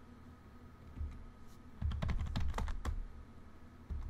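Typing on a computer keyboard: scattered keystrokes, with a quick run of clicks about two seconds in as a command is typed.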